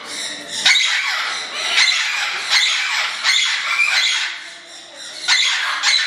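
Parrots squawking: loud, harsh calls about once a second, with a short lull near the end.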